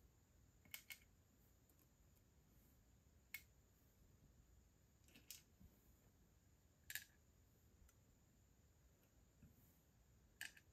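Light, sparse clicks of metal tweezers picking up perler beads and setting them onto a clear plastic pegboard, a click or quick double click every couple of seconds over faint room hiss.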